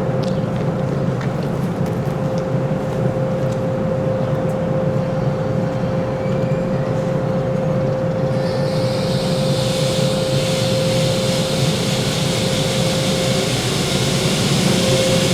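Electric train at a station platform, running with a steady whining tone over a low hum. About eight seconds in, a hiss rises and keeps on.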